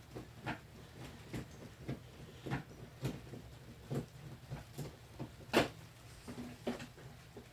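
Scattered, irregular clicks and knocks of a plastic electronic keyboard's parts being handled during repair, with one louder knock just past halfway, over a steady low hum.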